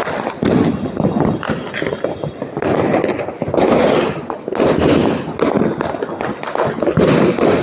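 Firecrackers and fireworks going off in quick succession: a dense, continuous crackle of pops and bangs with no pause.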